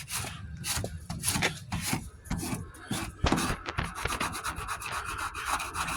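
Hand sanding with 40-grit paper: quick, uneven back-and-forth scraping strokes over fiberglass-reinforced (kitty hair) body filler that is only partly cured and still soft, being shaped before it hardens.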